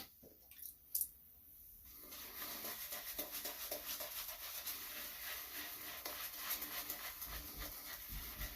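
Shaving brush (a Rubberset 803) working soap into a lather on a shaved head: a rapid wet swishing and crackling that starts about two seconds in, after a single soft click.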